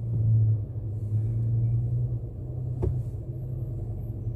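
Steady low rumble of a moving car heard from inside the cabin, with a single sharp click a little under three seconds in.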